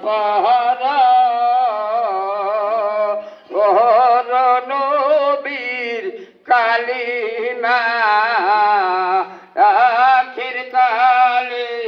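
A man singing a Bengali Islamic devotional song with no instruments heard, in long, wavering, drawn-out phrases with short breaks between them.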